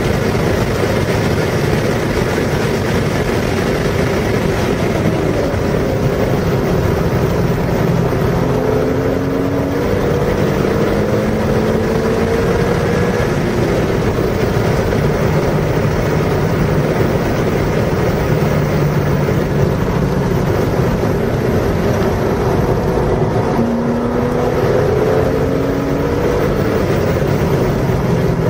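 Car engine running hard on a race circuit under dense wind and road noise, its pitch climbing through the revs, more clearly in two stretches.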